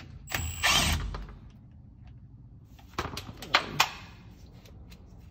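Milwaukee Fuel brushless cordless impact wrench running briefly, for under a second, backing out a bolt on a rear differential cover. About two seconds later come a few sharp clicks.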